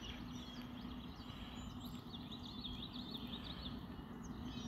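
Outdoor ambience: a songbird chirping in a quick series about two seconds in, over a steady low hum and faint background noise.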